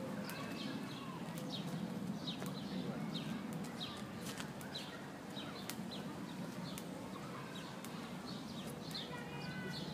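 A small bird chirping over and over in short, high, falling notes, about one or two a second, over a steady low hum of background noise.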